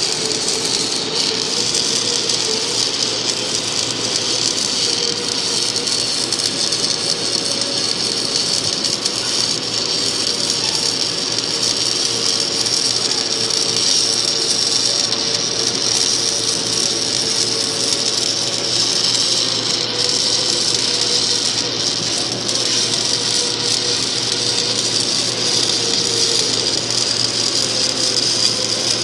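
Steady hiss over a low hum, with a faint wavering tone in the middle, played as a tinnitus-masking noise track.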